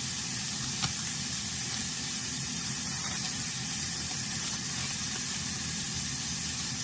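Sliced pork sizzling as it stir-fries in a pan, a steady hiss over a low steady hum, with a single click about a second in.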